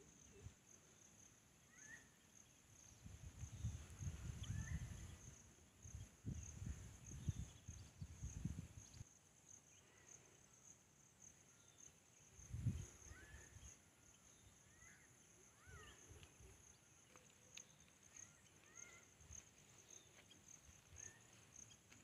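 Faint outdoor ambience: insects keep up a steady, high-pitched pulsing trill, with a few short chirps scattered through it. Low rumbles on the microphone come and go, mostly in the first half.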